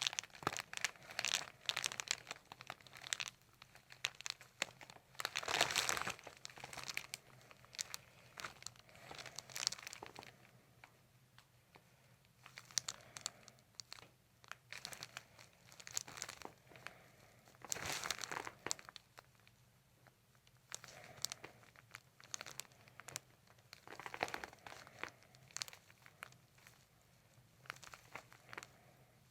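Paper cover on the treatment table crinkling and rustling in irregular bursts with small clicks, as the head and hands move on it, picked up close by a condenser microphone. The loudest bursts come about five seconds in and again past the middle.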